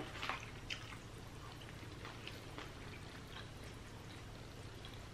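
Quiet eating sounds: scattered soft, wet clicks and smacks of chewing and of fingers picking at Taco Bell nachos, a couple of them louder in the first second.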